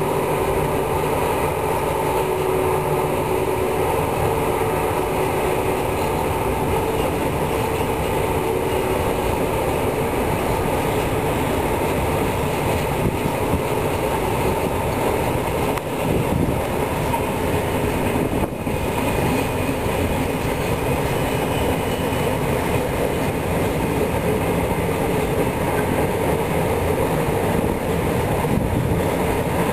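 Freight train of electric locomotives and tank wagons rolling steadily past: a continuous rumble of wheels on rail, with a few steady whining tones most noticeable in the first part.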